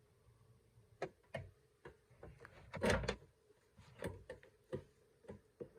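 Sharp clicks and knocks of the oil-filled heater's casing parts being handled and pressed back together as the heater is closed up, with a louder clattering knock about three seconds in.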